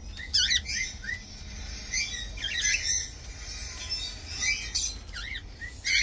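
Cockatiel calling in short, high chirps and quick warbles, in three bursts.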